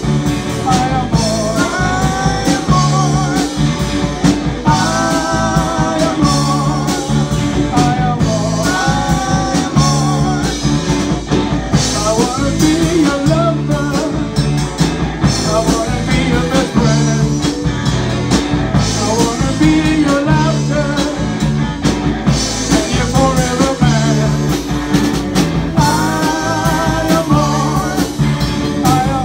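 A band playing a rock-and-roll number: a steady beat and bass with guitar, and a lead line that wavers with vibrato in repeating phrases.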